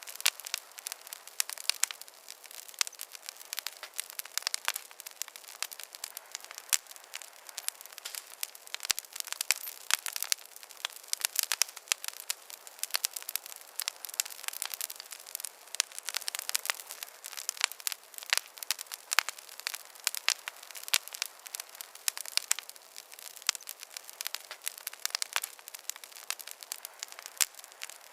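Campfire crackling: dense, irregular sharp crackles and pops over a faint steady hiss.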